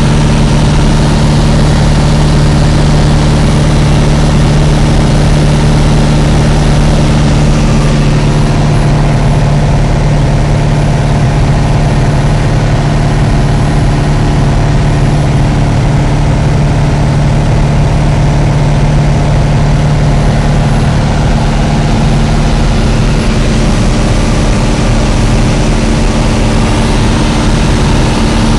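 Light aircraft's piston engine and propeller droning steadily, heard loud inside the cabin. The engine note changes about eight seconds in and again a little after twenty seconds.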